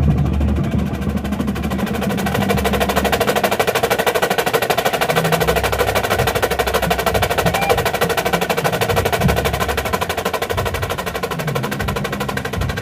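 Marching drumline (drum corps battery) playing a fast, dense passage: massed marching snare drums in rapid strokes, with lower drum notes coming in and out underneath.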